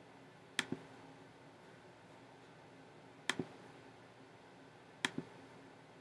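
Three pairs of short, sharp clicks, each pair a quick double click, about two seconds apart, over faint room noise.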